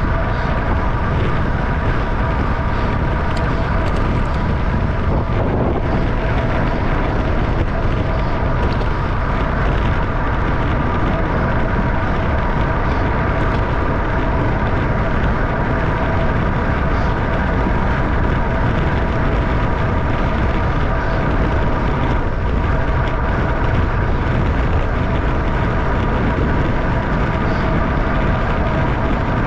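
Wind buffeting a bike-mounted camera's microphone at about 30 mph, over road and tyre noise from a racing bicycle, with a steady whirring hum through it.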